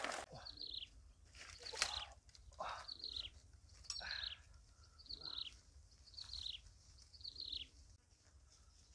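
A bird calling over and over, a short note sliding downward in pitch about once a second, with a few rustles and knocks.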